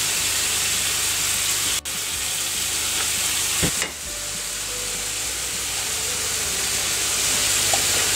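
Steady sizzling of sliced mushrooms frying in sunflower oil in a pan, with a short knock about three and a half seconds in.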